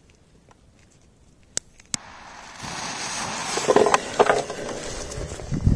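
Two sharp clicks, then a firecracker fuse burning with a steady hiss and crackle that swells after a couple of seconds. A low thump comes near the end.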